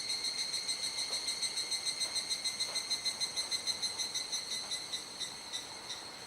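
A chorus of cicadas singing: a high ringing trill that pulses about four times a second and grows somewhat fainter near the end.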